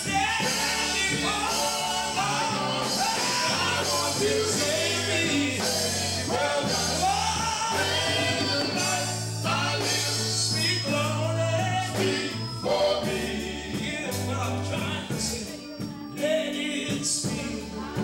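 Male gospel quartet singing live with guitar and keyboard accompaniment over a steady bass line.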